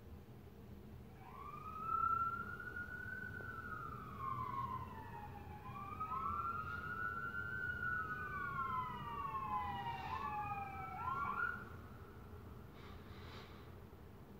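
Several overlapping wailing tones, each rising quickly and then sliding slowly down in pitch, lasting about ten seconds.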